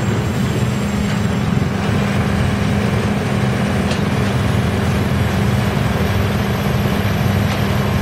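YGX2113 drum wood chipper running as a log is fed along its conveyor into the drum: a loud, even mechanical drone with a steady low hum.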